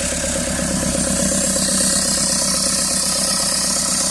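Mahindra XUV500 engine idling steadily just after a start. The noise under diagnosis, traced to an EGR vacuum solenoid, is absent: with the air filter and air-mass sensor off, the solenoid gets no current.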